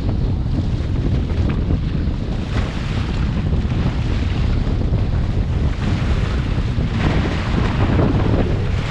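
Heavy wind buffeting a GoPro microphone on a waverunner out on choppy sea, with water rushing past. The hiss of wind and spray gets louder about seven seconds in.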